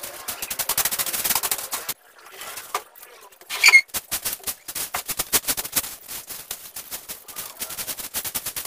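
Hand broom sweeping a dirt floor in quick, scratchy strokes, a rapid run of short scrapes. A brief, loud high squeak cuts in about three and a half seconds in.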